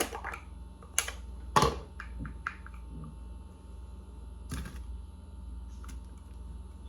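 Sharp plastic clicks and knocks from handling a mini food chopper, several in the first two and a half seconds and another about four and a half seconds in, over a faint steady hum.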